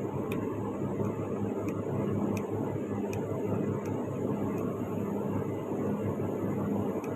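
Vertiv split air-conditioning unit running: a steady hum and rush of air, with a few faint light clicks spread through it.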